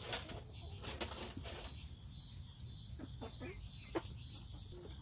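Backyard chickens: a few short, soft hen clucks with high, quick bird chirping in the background, and a couple of sharp knocks near the start.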